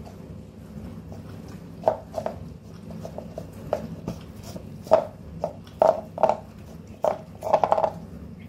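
A cat licking out an empty paper ice-cream tub: irregular taps and knocks as its tongue and head bump the tub. There are about ten of them, coming more often in the second half.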